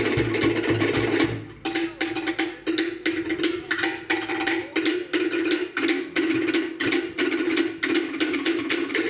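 Cook Islands drum ensemble playing a fast rhythm on wooden slit drums (pate). Deep bass-drum beats stop after about a second; there is a short break, and the slit drums carry on alone.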